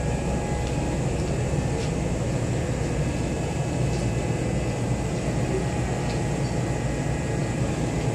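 Steady hum of a stationary Kintetsu electric train idling at the platform, its air conditioning and onboard equipment running, with a low rumble and a few faint ticks.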